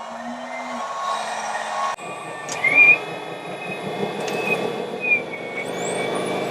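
Radio-controlled scale model trucks and construction machines running, with mechanical noise and a high whine that rises, holds and then falls away.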